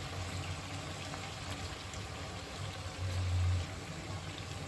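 Chicken curry simmering in its own oil in a pan, a faint even bubbling and sizzling with light ticks, over a low hum that swells briefly about three seconds in.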